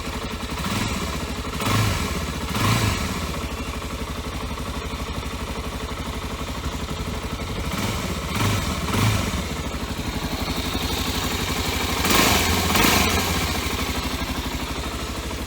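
Suzuki DR250R single-cylinder four-stroke engine idling steadily on its repaired TM28 carburetor, with three pairs of short throttle blips: one near the start, one about halfway and one near the end.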